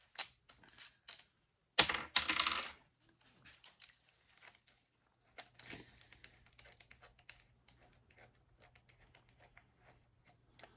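Small metal screws and hand tools handled on a workbench: light irregular clicks, with a brief louder rattle about two seconds in.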